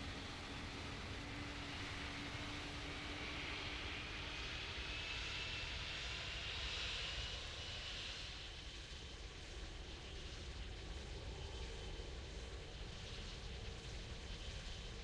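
Jet airliner passing, its engine noise swelling to a peak about seven seconds in with a thin rising whine, then easing off.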